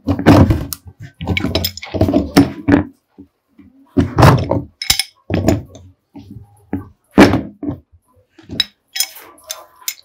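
Pipe wrench tightening a threaded fitting on a plastic water tank: a string of irregular thunks and knocks as the wrench grips, turns and is repositioned against the plastic, with short pauses between.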